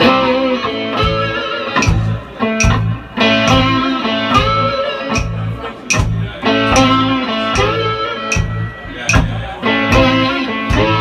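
Live blues band playing with electric guitar, bass and drums, the full band coming in together at the start with a steady drum beat.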